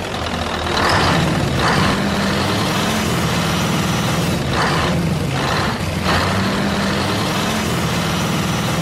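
Heavy diesel truck engine running steadily under load, with several brief louder surges of noise.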